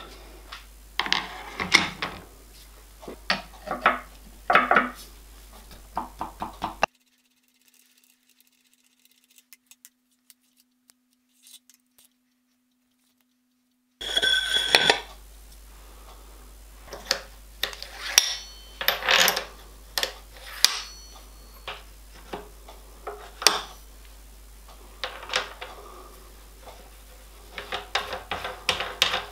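Steel arbor spacers and a toothed milling cutter clinking and knocking as they are slid onto a horizontal milling machine arbor and the end nut is fitted. The sound is a string of sharp separate metal clinks, some ringing briefly. A few seconds of near silence fall in the first half.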